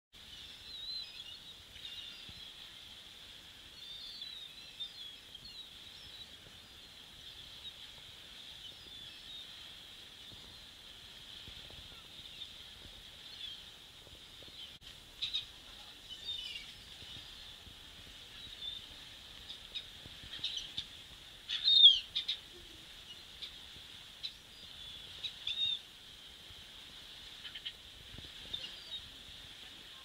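Gulls calling as they fly over the shore: scattered short, sharp calls over a steady high hiss, the loudest call about two-thirds of the way through.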